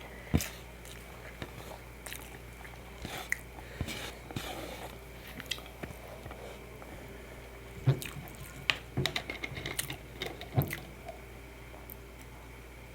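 Close-miked chewing and biting: wet mouth clicks and smacks at irregular intervals, busiest a little past the middle.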